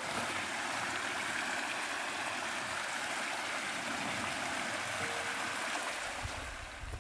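Mountain creek running: a steady rush of flowing water.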